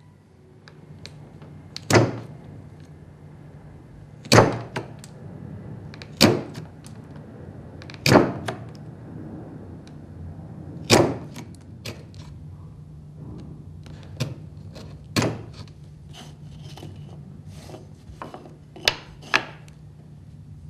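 Bench chisel, pushed by hand, chopping and paring waste out of a cross halving joint socket in a piece of timber. Sharp knocks come every two seconds or so as the blade cuts through, with lighter clicks between.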